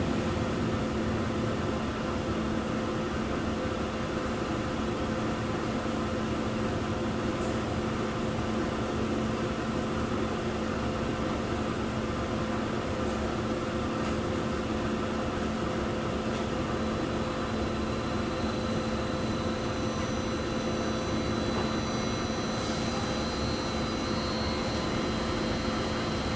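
Fabric jet dyeing machine running: a steady mechanical hum with a constant low drone. Faint high-pitched tones join in during the second half.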